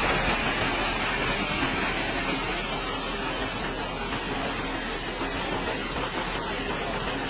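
Excavator fitted with a dredge pump at work: an engine runs under a steady, even rushing noise.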